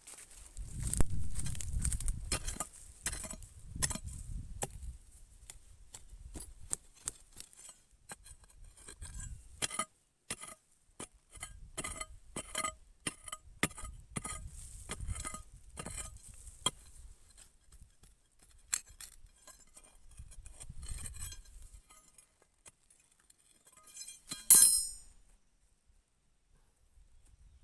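Steel digging bar striking and chipping hard, stony soil around a shrub's roots: a run of sharp metallic clinks with a short ring, about one to two a second, with dull thuds in the first few seconds. A louder sudden burst comes near the end.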